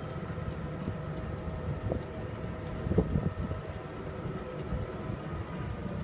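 Ride in an open-sided cart on a paved road: steady running noise with a low rumble and a few faint steady whining tones, wind on the microphone, and a couple of bumps about two and three seconds in.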